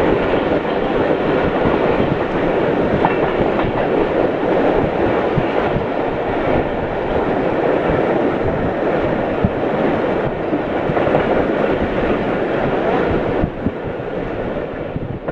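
Passenger train rolling past, its wheels clattering over the rail joints. The sound is loud and steady, then drops off suddenly near the end and keeps fading.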